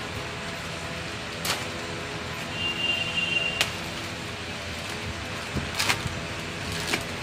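Thin plastic mailer bag being torn open and pulled apart by hand: a few sharp crinkles and rips of plastic, several of them bunched near the end, over steady room noise.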